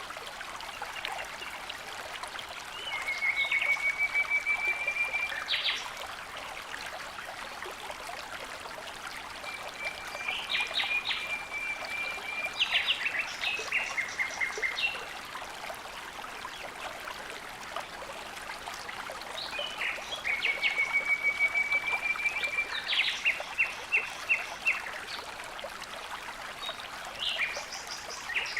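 Steady running water with a songbird singing three times. Each song is a fast, even trill of two to three seconds followed by a few sharp higher notes.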